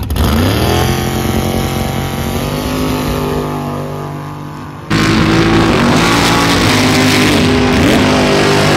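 A mud drag truck's engine revs up hard at the launch and is held at full throttle as the truck pulls away down the mud pit, getting gradually quieter. After a sudden cut about five seconds in, an engine runs loud at high revs, with a few brief dips in pitch.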